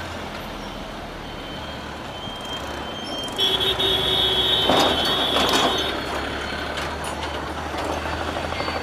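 Road traffic around a bicycle, with a steady rumble of wind on the microphone. Past the middle a high-pitched tone sounds for about two and a half seconds, with a fainter thin tone before it.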